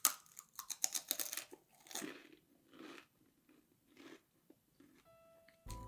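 Crisp fried duros (puffed wheat-pellet snacks) coated in cinnamon sugar being bitten and chewed: a quick run of sharp crunches, then slower, softer chewing crunches.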